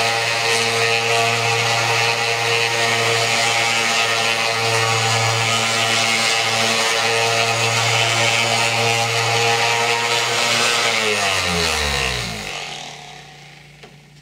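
DeWalt random orbital sander running steadily against the hard oil-paint base coat of a wooden speaker box, sanding it flat. About eleven seconds in it is switched off and its pitch falls away as it winds down, leaving a faint low hum.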